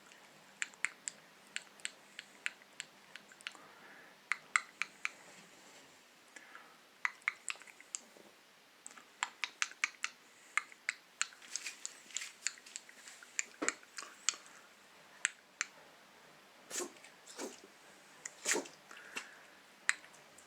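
Yorkshire terrier sneezing and snuffling: a long, uneven run of short, sharp clicking sounds, with three louder, longer sneezes near the end.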